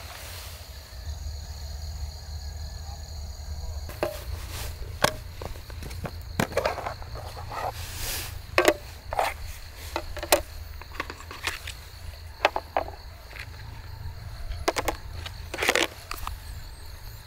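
Nested camping mess tins being unpacked and set down on a small folding table: a series of irregular clacks, knocks and light clinks, some ringing briefly. For the first few seconds, before the handling starts, only a steady high chirring of insects is heard.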